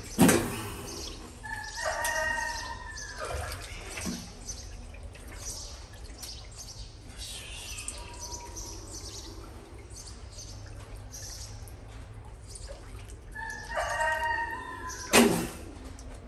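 A rooster-like crowing call about two seconds in and again near the end, each a held call of about a second. A sharp knock comes just after the start and another just before the end.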